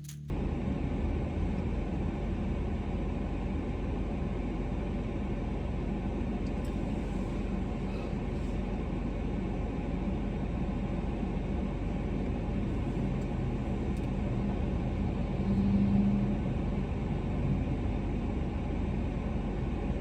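Steady rumble of a car being driven: tyre and engine noise with a faint hum, swelling briefly about sixteen seconds in.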